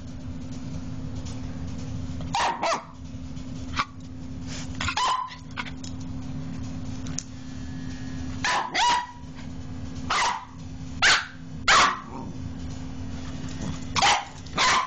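A Pembroke Welsh Corgi puppy barking: a dozen or so short, sharp barks at irregular intervals, several in quick pairs. Under the barks is the steady low hum of a handheld electric massager's vibrating motor, left running.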